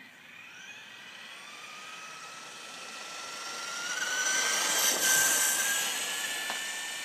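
RC car's motor whining as it speeds up, rising slowly in pitch and getting louder as the car comes close, loudest about five seconds in, then starting to fade.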